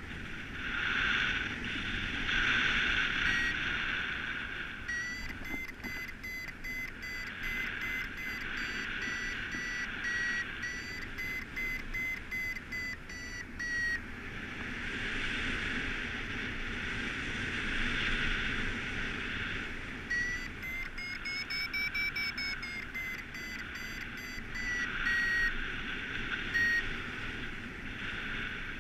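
Paraglider variometer beeping in quick repeated tones, its pitch rising and falling with the climb rate, over wind rushing past the microphone. The beeping comes in two spells, and the second goes higher in pitch in its middle: the vario is signalling that the glider is climbing.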